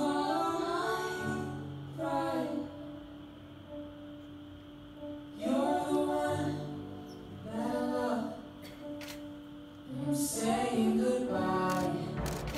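Music accompanying a dance: a voice sings drawn-out phrases, about five of them with short pauses between, over held low accompaniment notes.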